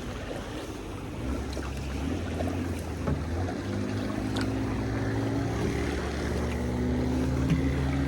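A motor engine running at a steady pitch, starting about a second in and growing slowly louder, over wind and water noise.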